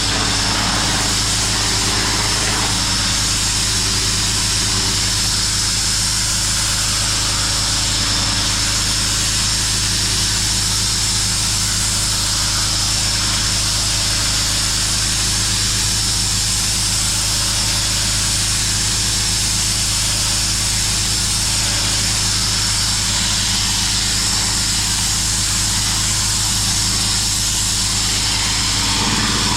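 Pressure washer running steadily, its engine a constant low drone under the even hiss of the high-pressure water jet spraying on concrete.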